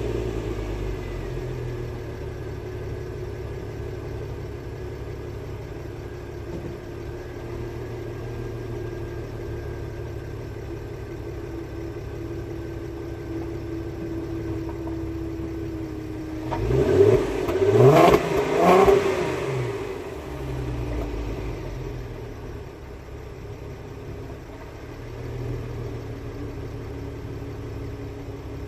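Volkswagen Passat's 3.2-litre VR6 FSI engine on its stock exhaust, idling just after a start, its idle easing down over the first seconds. A bit over halfway through it is revved three times in quick succession, each rev rising and falling, then drops back to a steady idle.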